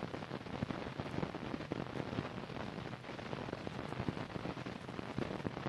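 Steady hiss with dense, irregular crackling: the surface noise of an old film soundtrack.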